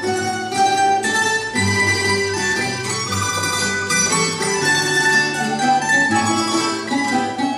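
Traditional Valencian folk music played by plucked string instruments, a continuous melody of quickly changing notes.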